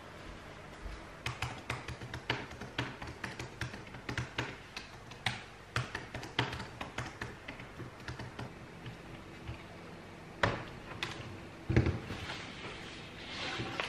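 Fingers typing on a laptop keyboard in quick, irregular keystrokes, followed near the end by two louder knocks.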